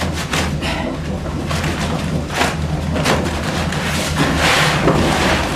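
Windmill's grain-milling machinery running: a steady low rumble with repeated clattering knocks. A louder rushing hiss rises about four seconds in.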